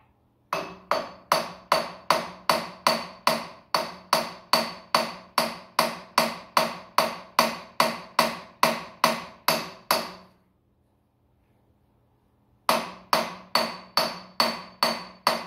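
Hammer blows on metal at the top of a Ford 7610 tractor engine, struck at a steady rate of a little over two a second, each with a short metallic ring. The blows stop about ten seconds in, and after a pause of about two seconds they start again.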